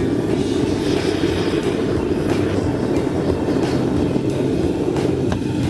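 Gas burner of a small aluminium-melting furnace running steadily after lighting, a constant even rush of flame.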